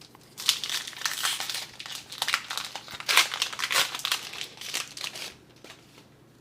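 Foil Pokémon booster pack wrapper crinkling as the pack is handled and opened, a dense irregular crackle lasting about five seconds and stopping about a second before the end.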